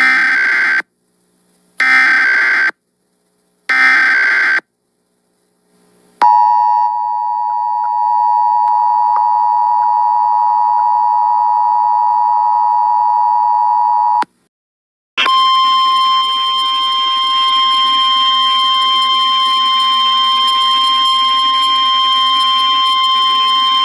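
Emergency Alert System tornado-warning tones. First come three short bursts of SAME header data, about two seconds apart. Then the steady two-tone attention signal runs for about eight seconds, and after a brief gap a single steady alarm tone plays over hiss, the NOAA Weather Radio warning alarm.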